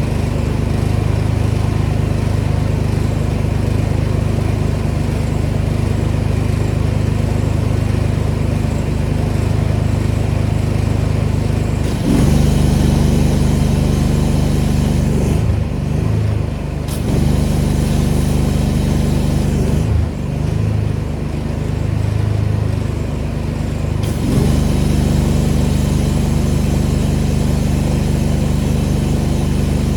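Gas-engine pressure washer running steadily. The hiss of the high-pressure spray comes in about twelve seconds in, then stops and restarts twice as the trigger is released and pulled, the engine note shifting with each change in load.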